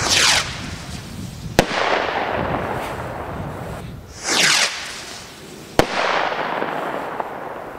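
Two small stick rockets launching one after the other. Each takes off with a short whoosh that falls in pitch, then bursts about a second and a half later with a sharp bang and a fading echo.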